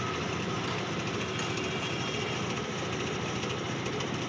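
Steady mechanical running noise at an even level, with no breaks or single impacts.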